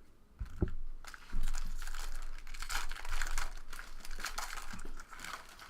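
Plastic-foil trading-card pack wrapper crinkling as it is torn open and handled, after a low thump about half a second in.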